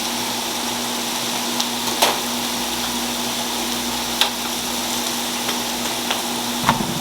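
Scallions frying in a hot pan, a steady sizzling hiss over a low steady hum, with a few light clicks.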